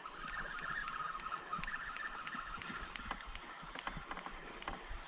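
Chirring animal chorus from the riverbank jungle, fading about halfway through, over a steady outdoor background, with scattered light clicks and knocks from fishing gear being handled in a small boat.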